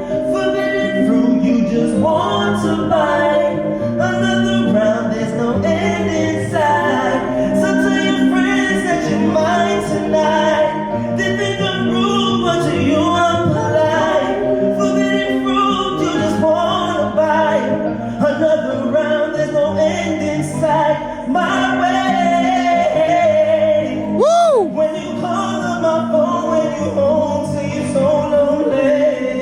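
Live song: a singer's voice sliding through wordless runs over accompaniment with a steady, stepping bass line, with one swooping vocal glide up and back down near the end.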